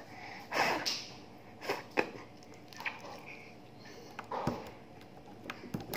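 Homemade slime being handled and stretched by hand on a table: a few scattered soft squishes and handling noises, with one sharper click about two seconds in.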